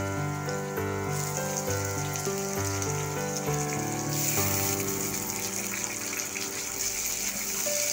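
Instrumental background music with a steady bass line, over a steady hiss that grows louder about four seconds in.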